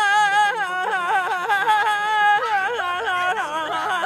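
A man singing unaccompanied at full voice, a high, wavering melody of held notes with quick ornamental turns, in the manner of a folk singer with a hand cupped to his ear.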